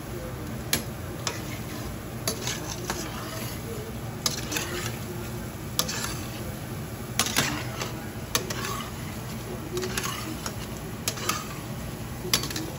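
A metal utensil clinking and scraping against a pot or pan, with irregular sharp knocks every second or so, over a steady low hum.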